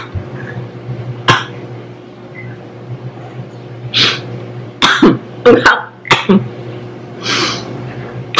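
A woman coughing and clearing her throat into her fist, about seven short sharp coughs with a quick cluster around the middle, from the burn of a siling labuyo chili she has just eaten.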